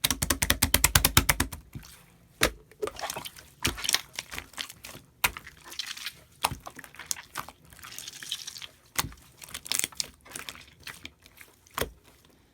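Slime being squished and poked by hand: a fast run of wet clicks and pops for the first couple of seconds, then scattered sticky pops and crackles.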